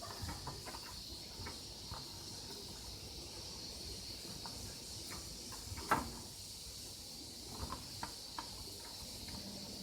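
Slime being squeezed and played with by hand, making scattered small sticky clicks and pops, with one louder pop about six seconds in, over a steady faint hiss.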